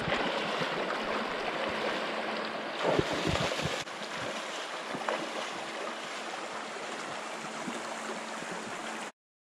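Shallow, rocky river rushing steadily, with a few louder splashes about three seconds in as someone wades through it. The sound cuts off abruptly just before the end.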